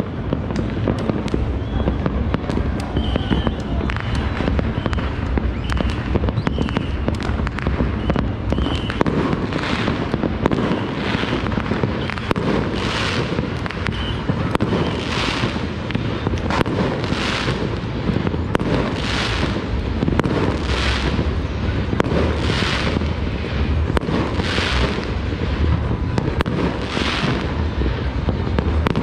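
Many fireworks and firecrackers going off across a city at once, heard as a dense, continuous crackle of distant bangs. Through the second half a hiss swells and fades about every two seconds.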